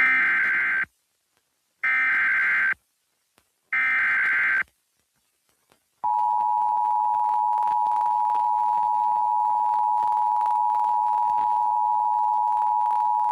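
Emergency Alert System header on an FM broadcast: three short warbling SAME data tones, each under a second and about a second apart, then the steady two-tone EAS attention signal starting about six seconds in. The signal announces a National Weather Service severe thunderstorm warning.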